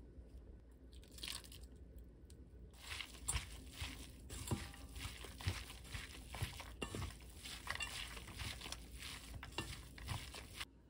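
Gloved hands kneading minced beef with seasonings in a stainless steel bowl for a tteokgalbi patty mix: a close run of short squishing sounds that starts about three seconds in, with a few softer ones before, and stops abruptly near the end.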